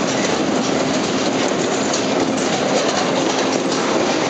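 Tilt-A-Whirl ride running, heard from inside a spinning car: a steady rolling rumble and clatter of the ride's wheels and platform, with scattered clacks.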